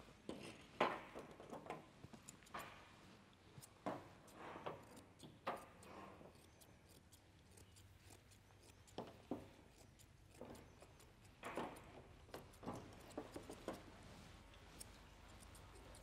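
Grooming shears snipping a Shih Tzu's coat: faint, irregular snips and clicks.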